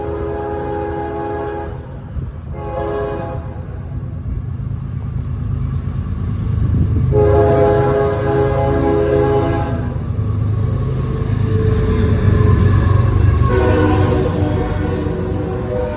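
Locomotive horn sounding several times: a blast that ends about two seconds in, a short toot, then two longer blasts, over the steady low rumble of the train, which grows louder partway through.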